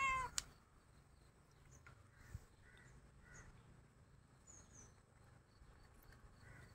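A domestic cat gives one short meow at the very start, its pitch rising and falling, begging up at raw chicken held over it. After that only faint outdoor sound remains, with soft distant bird calls.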